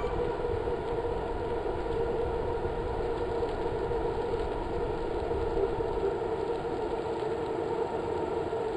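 A steady mechanical drone, as of a vehicle running: a constant hum over a low rumble, unchanging throughout.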